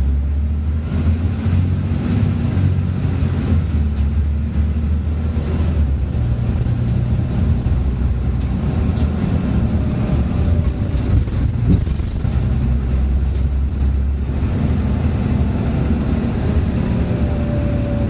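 Scania N94UB single-deck bus engine and automatic driveline running under way, heard from inside the passenger saloon: a steady, loud low engine note that changes briefly about fourteen seconds in, as with a gear change or the throttle easing.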